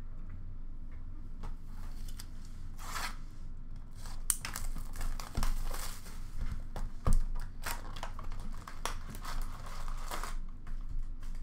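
Plastic shrink wrap crinkling and tearing as a hockey card box is unwrapped and opened, with a couple of dull knocks of the box on the counter about halfway through.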